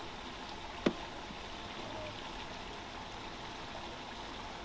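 Steady background hiss with a single sharp click about a second in.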